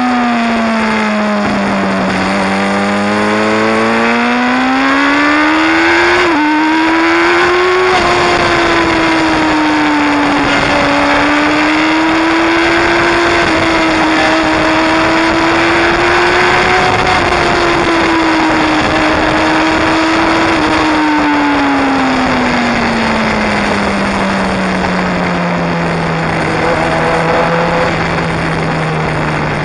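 Sport motorcycle engine under way, heard from a camera on the bike, its pitch dipping and climbing again with a quick break about six seconds in, then holding fairly steady before falling and settling low over the last several seconds as the bike slows. Wind rushes over the microphone throughout.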